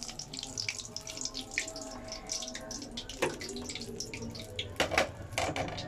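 Potato fries deep-frying in hot oil in a wok: a steady sizzle full of small crackles and pops, with a few sharp knocks about three seconds in and again near the end.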